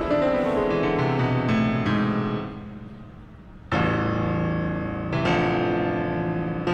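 Background piano music: a run of notes fades away, then full chords are struck about four seconds in and again a second and a half later.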